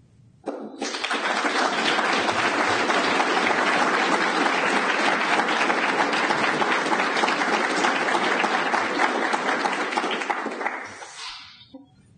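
Audience applause, many people clapping. It starts about half a second in and dies away near the end.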